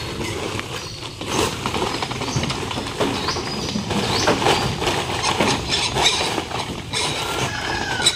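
Piglets moving about in their crates, their trotters clattering and knocking on the crate floors and sides, with a few short, high squeaks.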